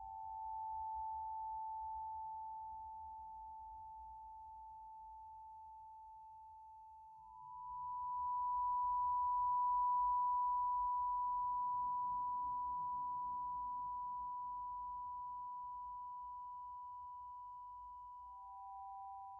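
Electronic drone of pure sine tones: two steady tones held together, joined about seven seconds in by a slightly higher tone that swells up and then slowly fades while the lowest tone drops out. Near the end the lowest tone comes back in.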